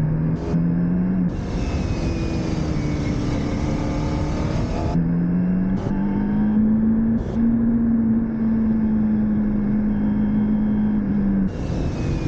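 Motorcycle engine running hard on track, its pitch stepping up and down several times as the revs change through gear changes and corners, over steady wind and road noise.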